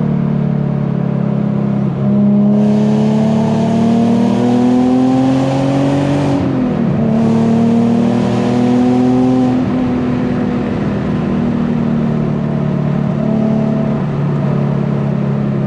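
Infiniti G37's VQ V6 engine pulling hard, its pitch rising, then dropping sharply at an upshift about six seconds in and rising again through the next gear. It settles to steady cruising for the last few seconds.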